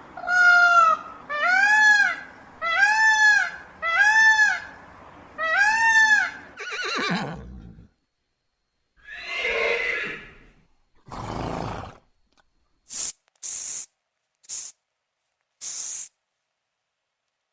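An animal calling five times in a row, each call short and arched in pitch, about a second and a quarter apart. Three longer rough, noisy sounds follow, then several brief high hissing bursts near the end.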